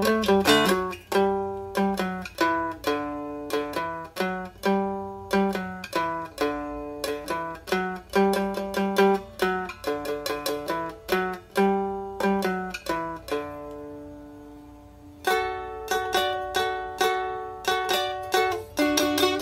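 Plucked-string instrumental music picking out a lively melody in quick, decaying notes. About two-thirds of the way through, one chord rings out and fades for a couple of seconds before the picking starts again.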